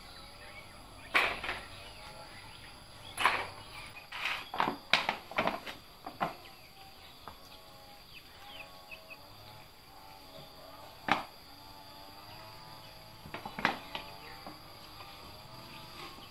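Small metal engine parts clinking and knocking as they are handled and set down: a scatter of sharp separate clinks, most of them in the first six seconds, then single ones later on.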